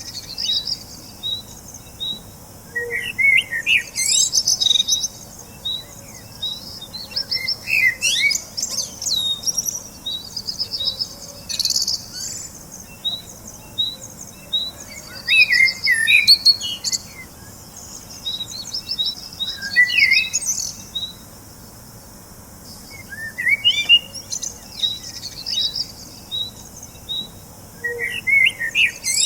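Several songbirds chirping and trilling. Short rising and falling phrases come back every few seconds over a regular run of short high notes.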